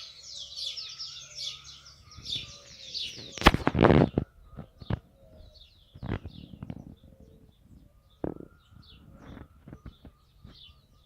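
Songbirds chirping and singing at dawn: dense quick chirps at first, thinning out to scattered calls after a few seconds. About three and a half seconds in there is a loud rustling thump, followed by a few shorter, quieter ones.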